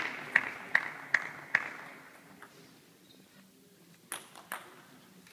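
Table tennis ball bouncing, a run of sharp pinging bounces about 0.4 s apart that fade away over the first second and a half as the ball dies out after the rally. After a lull, two more ball taps come about four seconds in.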